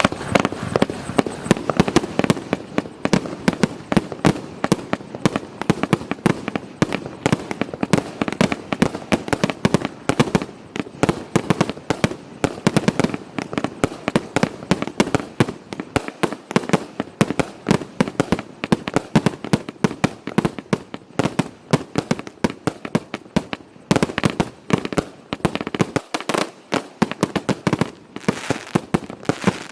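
Firework cake (Dominator Blizzard of Brocades) firing a fast, unbroken barrage of sharp reports and bursts, several a second.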